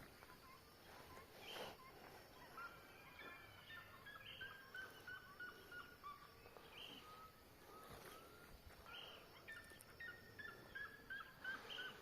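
Faint bird calls: runs of quick, short notes repeated in series, several runs in a row.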